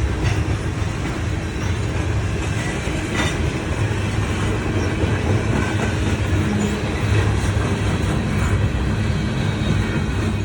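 A train running on the rails: a steady, loud rumble with a few sharp wheel clicks.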